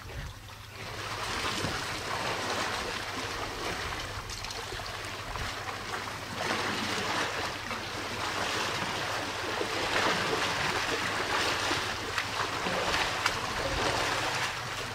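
Water splashing and sloshing as African elephants drink and wade at a waterhole: a steady rushing wash that shifts about six seconds in.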